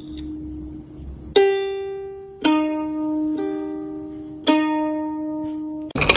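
Background music of slow, single plucked string notes, each struck about a second apart and left to ring and fade. Just before the end it cuts abruptly to a noisy clatter.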